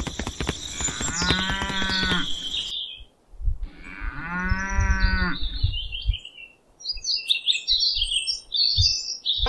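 Cow mooing twice, each moo about a second long and the second starting about two and a half seconds after the first. Birds chirp in the background in the second half.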